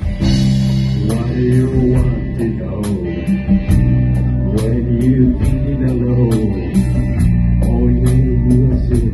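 Live rock band playing: electric guitars and bass guitar holding chords over a drum kit, with a steady cymbal beat.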